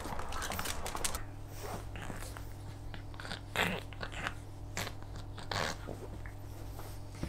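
A pug chewing, a series of short, irregular chewing and crunching noises.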